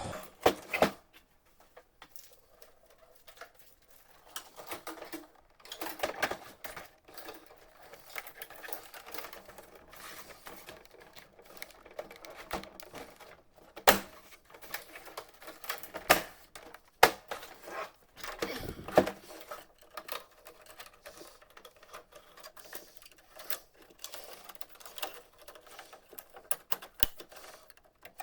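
Plastic panels and parts of a printer being handled and unclipped: scattered clicks and snaps, irregularly spaced, with a few sharper knocks and some brief rustling.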